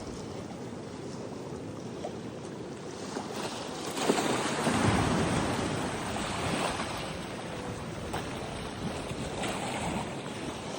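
Ocean waves washing onto a beach, with a larger wave surging in about four seconds in and then easing off.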